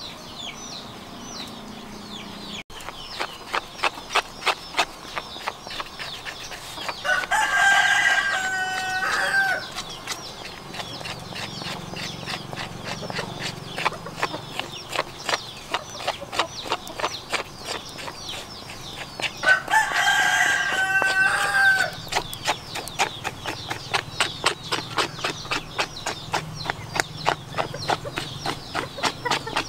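A rooster crows twice, each crow about two seconds long, once about a quarter of the way in and again just past the middle. Under it runs a steady series of short scraping strokes: a spoon and then a knife scraping wet hair off a calf's head.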